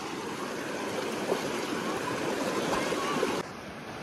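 Shallow stream water rushing steadily over a rock bed, a little quieter from about three and a half seconds in.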